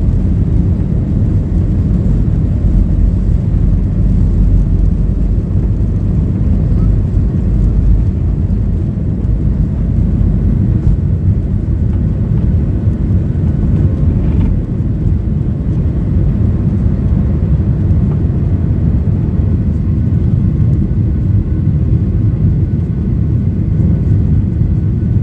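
Steady low rumble of a Boeing 737-800's CFM56-7B engines and rushing air, heard inside the passenger cabin during the climb after takeoff.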